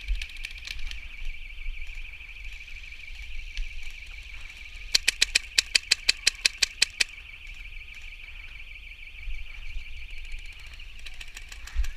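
An airsoft gun fires a rapid string of about a dozen shots, about six a second, for roughly two seconds starting about five seconds in, with a few single shots near the start. A steady high-pitched warbling tone runs underneath throughout.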